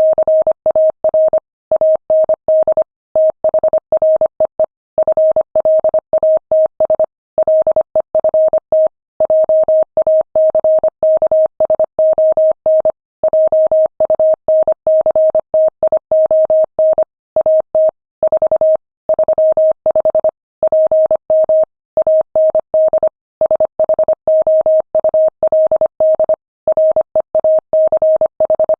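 Morse code sent at 25 words per minute: a single steady mid-pitched tone keyed on and off in quick dots and dashes, with short gaps between letters and longer gaps between words.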